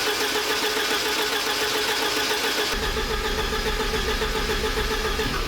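Starter motor cranking a 1986 Porsche 944 Turbo's turbocharged 2.5-litre inline-four over and over in an even rhythm without it firing or catching: a no-start with zero fuel pressure at the rail, pointing to a fuel pump that is not running.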